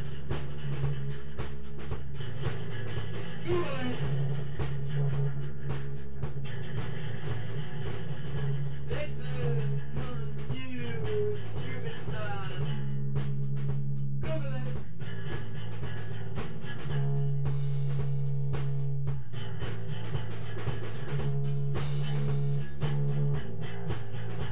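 Live rock jam: a bass holds long low notes that change every second or two under steady drumming, while a guitar plays wavering, sliding notes above.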